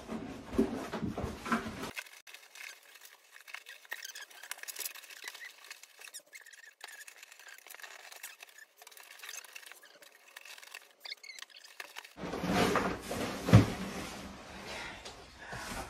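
Paper packing and a cardboard box rustling and crinkling as a wrapped potted plant is worked free inside a tall shipping box, with scattered scratchy clicks. The rustling grows louder about twelve seconds in, with a single thump.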